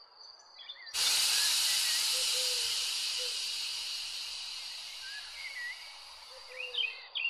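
Steam locomotive hissing steam: a sudden hiss about a second in that slowly fades away as the engine stands in steam. Birds chirp faintly throughout.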